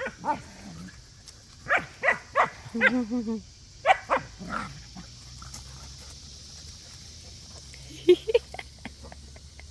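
Dogs barking in play: a run of short barks in the first half, with one longer growly bark among them, then a couple more barks near the end.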